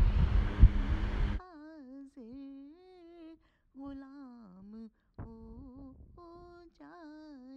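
A loud rushing noise cuts off about a second and a half in. It leaves a woman's faint, wordless humming of the naat's slow melody, with held notes and gentle glides.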